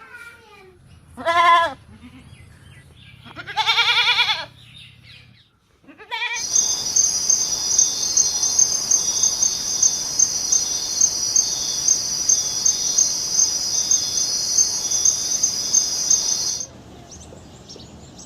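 A goat bleating twice, then about ten seconds of steady high-pitched cricket chirping that cuts off shortly before the end.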